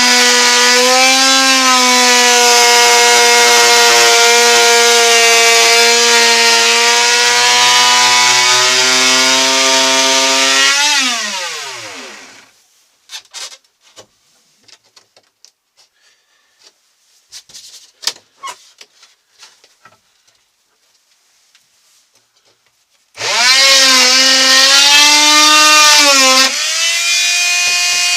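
A power saw cutting into a boat's interior panel with a steady, high whine. It spins down about eleven seconds in. Faint clicks and knocks follow, then it starts cutting again about 23 seconds in, its pitch dropping a few seconds later.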